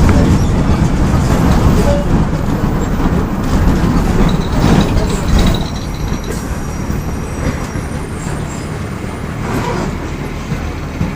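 Volksbus 17.210 bus's MWM 6.12 TCAE six-cylinder turbo-diesel running, with a heavy low rumble and rattle. It is louder for the first half, then drops to a lower, steadier level about halfway through.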